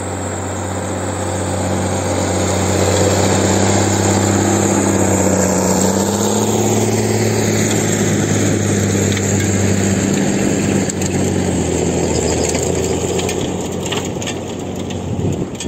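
Farm tractor's diesel engine running steadily as the tractor drives past while blowing snow with a tractor-mounted snow blower. A high whine falls steadily in pitch through the middle of the pass, and the engine is loudest a few seconds in before easing off.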